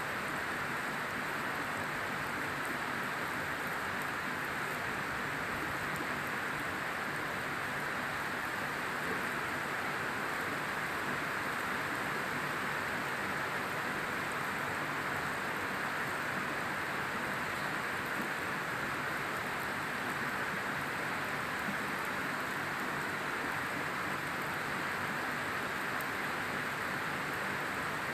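Steady rain falling, an even hiss that holds the same strength throughout.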